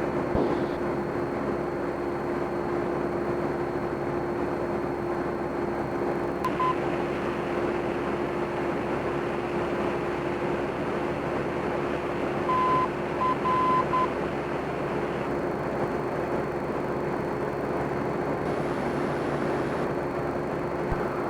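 Cessna 172M's four-cylinder Lycoming engine and propeller droning steadily in flight, with one strong steady tone through the noise. A short high beep about a third of the way in and a group of short and long beeps at the same pitch past the middle sound like a radio navigation aid's Morse-code identifier.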